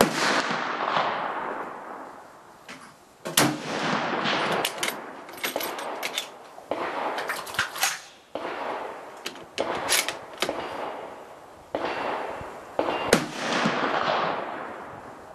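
Japanese Type 99 Arisaka bolt-action rifle (7.7 mm) firing: a shot at the start and another about 13 seconds in, each trailing off in a long echo. In between come further sharp reports and short metallic clicks as the bolt is worked.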